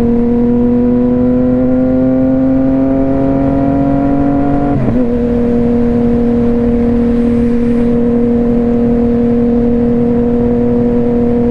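Motorcycle engine pulling through a gear, its note rising steadily, then an upshift about five seconds in, after which it holds a steady note while cruising, with wind noise throughout.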